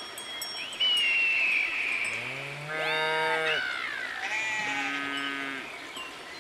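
Farm animal calls: a long, low, cow-like moo about two seconds in, then a higher sheep-like bleat. A high bell-like ringing comes first.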